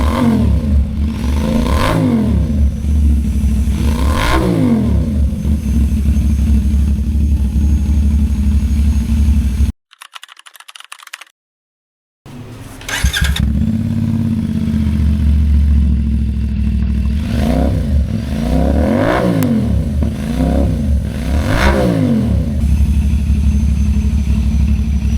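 CFMoto 450SR-S parallel-twin engine idling through an aftermarket slip-on muffler and being blipped, each rev rising and dropping back quickly: a few blips early, a short break, then several more in quick succession.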